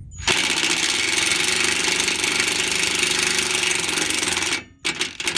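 Power drill driving a self-tapping screw, running steadily for about four seconds and then in two short bursts near the end.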